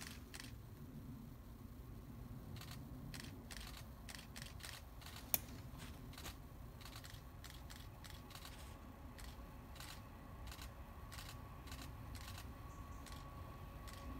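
Faint whine of a distant VT 2E diesel railcar coming in about halfway and growing as it approaches, over a low rumble and many irregular faint clicks, with one sharper click about a third of the way in.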